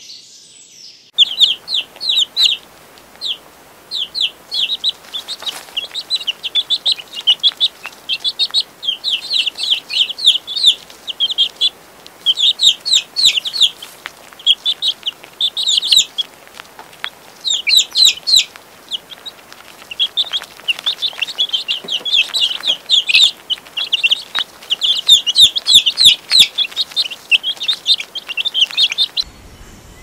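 A flock of domestic chicks peeping: many short, high cheeps in quick runs, starting about a second in and stopping just before the end.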